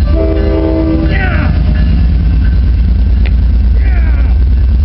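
Train horn sounding a short chord blast that sags in pitch as it cuts off about a second and a half in, over a loud low rumble. Two short falling squeals come about a second in and again near the end.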